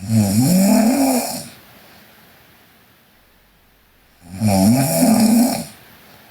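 A sleeping girl snoring: two loud snores about four seconds apart, each lasting about a second and a half, with a pitch that dips and then rises.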